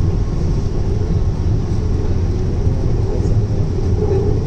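Steady low rumble of a Hyderabad Metro Rail train, heard from inside the car as it runs along the track. A faint steady tone sits above the rumble.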